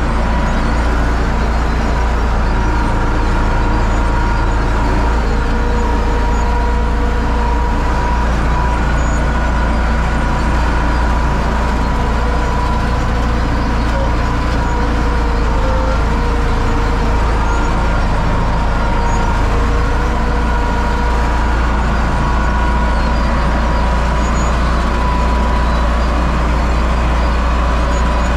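Universal U650 tractor's four-cylinder diesel engine running steadily, with a faint steady whine above the drone.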